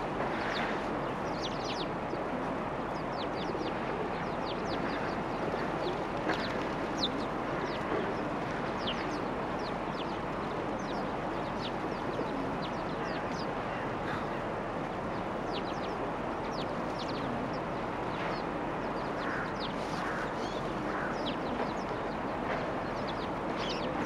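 A flock of small birds chirping busily, with short high downward chirps coming several times a second, over a steady background hiss.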